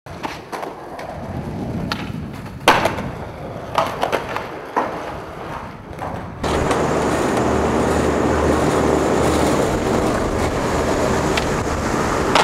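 Skateboard wheels rolling on concrete, with several sharp clacks of the board striking the ground about a second apart. About halfway through, a louder, steady rumble takes over.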